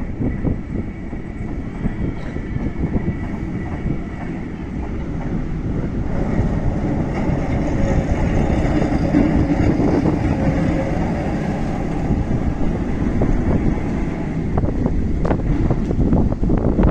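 Vintage S-type tram motor car no. 1820 rolling past on curving track, its wheels running on the rails. It grows louder as it passes, about eight seconds in, and a run of sharp clicks comes near the end.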